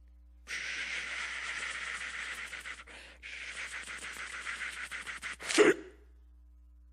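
A performer's mouth sound effect into a handheld microphone: a long, fluttering hiss with a short break about halfway, ending in a short, loud vocal burst.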